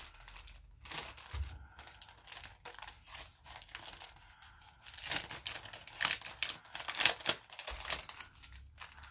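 Paper and packaging being handled: irregular crinkling and rustling, busier in the second half.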